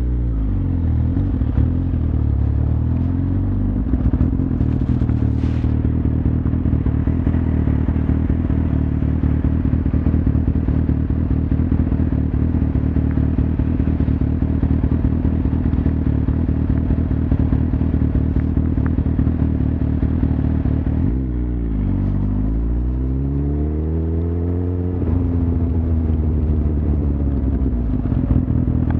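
Suzuki GSX-R1000's inline-four engine running under way at a steady pitch. Near the start, and again about three quarters of the way through, the engine note falls and then climbs back up, as the throttle is eased off and opened again.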